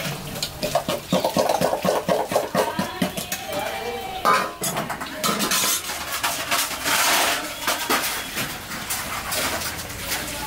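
Stainless steel vessels and plates clattering and clinking as they are handled and stacked, with many sharp metal knocks throughout.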